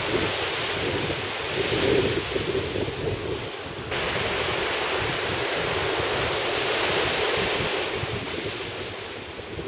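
Shorebreak waves crashing and washing up the sand, a steady roar of surf, with wind buffeting the microphone in gusts. The hiss of the surf jumps up abruptly about four seconds in.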